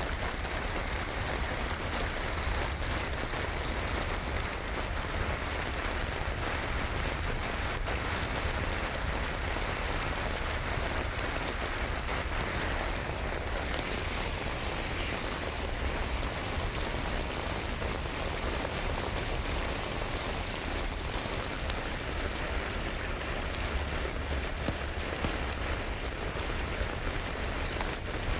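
Steady rain falling, with a few faint crackles from a wood fire near the end.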